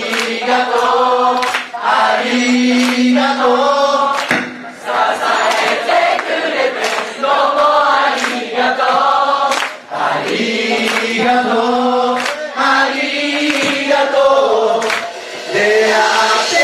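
Live band music with several voices singing a melody together.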